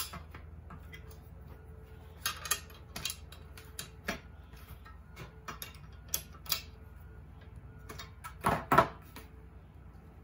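Wrench clicking against nuts and bolts on a metal frame as they are tightened: scattered sharp metallic clicks, with a couple of louder knocks about eight and a half seconds in.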